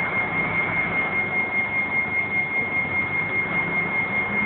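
Steady background noise of a large warehouse: an even rushing hum with a continuous high-pitched whine over it.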